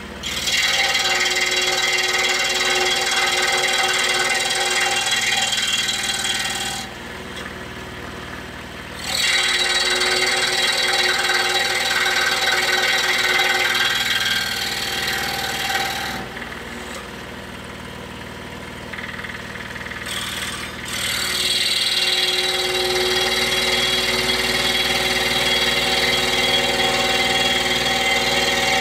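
Scroll saw running and cutting through hard maple, a steady buzzing drone. Twice it drops to a quieter hum, for about two seconds and then about five seconds, before the cutting sound comes back.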